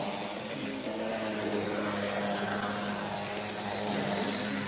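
HO-gauge model electric locomotive running past on the layout track: steady whir of its motor and wheels rolling on the rails, over a steady hum.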